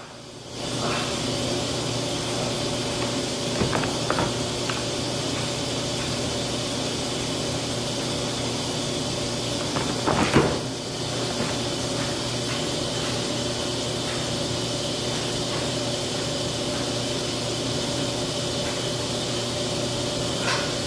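Laundry machines running: a steady mechanical hum with hiss, with a few light knocks and a louder knock about ten seconds in.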